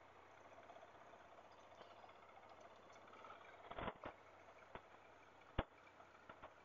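Faint sound of a Triumph Tiger 1200 motorcycle rolling slowly over a gravel track, with a few sharp knocks and clicks a little over halfway through.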